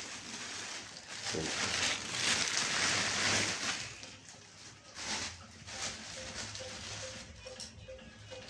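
Thin plastic carrier bag rustling and crinkling as vegetables are pulled out of it, loudest in a long stretch early on, then in a few short, softer rustles.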